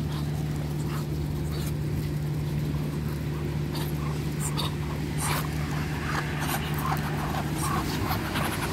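Muscovy ducks pecking scattered cracked corn off asphalt and from an open hand, a scatter of small sharp clicks, with soft short calls in the second half, over a steady low hum.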